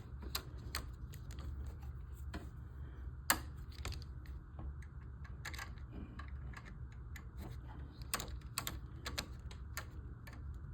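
Small screwdriver turning a screw into plastic and metal model parts: irregular light clicks and ticks of the tool and parts, the sharpest about three seconds in, over a steady low hum.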